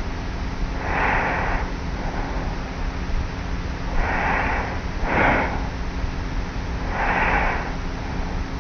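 A sleeping young woman's light, regular snoring breaths, picked up close by a cassette tape recorder lying on her pillow. Four soft breaths come roughly every three seconds, with an extra short one just after the second, over steady tape hiss and a low hum.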